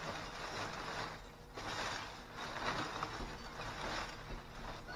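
Thin plastic trash bag crinkling and rustling as it is torn open and rummaged through by hand, in uneven surges.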